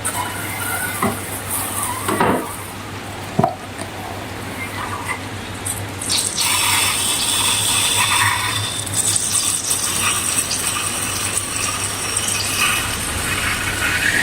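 Wet, liquid sounds of slime-making. There are a couple of sharp taps in the first few seconds, then a steadier hissing, liquid sound from about six seconds in.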